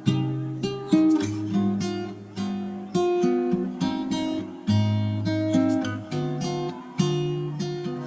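Acoustic guitar music: strummed chords and plucked notes that ring out, a fresh strum every one to two seconds.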